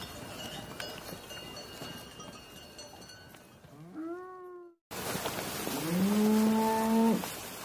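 Cattle mooing twice: a short, higher moo about four seconds in that rises in pitch and cuts off suddenly, then a longer, louder, deeper moo about six seconds in that rises and then holds steady for over a second.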